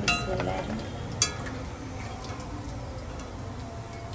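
A steel spoon clinks twice against a steel kadai, once at the start and again about a second later, while chicken fries in the oil with a steady faint sizzle.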